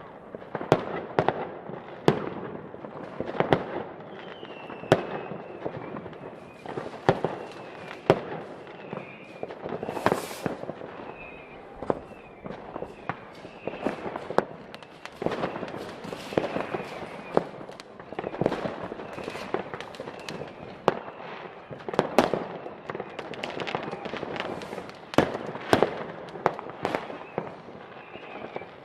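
New Year's Eve fireworks: rockets and firecrackers bang sharply many times at irregular intervals, with crackling between the reports. A hissing rush comes about ten seconds in, and faint falling whistles are heard through the middle.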